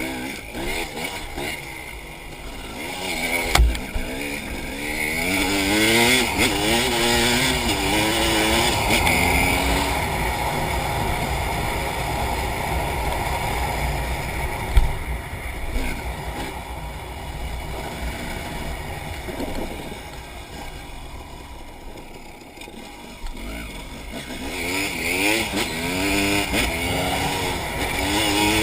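Off-road enduro motorcycle engine revving up and down through the gears, loudest in a long stretch early on and again near the end, with a couple of sharp knocks along the way.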